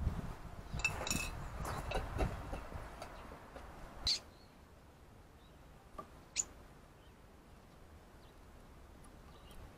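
Wild garden birds giving a few short chirping calls: a chirp about a second in, a sharper call about four seconds in and another about six seconds in, over a faint outdoor rumble.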